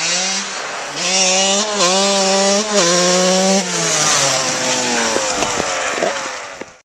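Freshly rebuilt single-cylinder two-stroke engine of a 1999 KTM 125 SX dirt bike, revving hard as the bike rides past. The pitch climbs and holds high, then falls from about three and a half seconds in as it pulls away. The sound cuts off suddenly near the end.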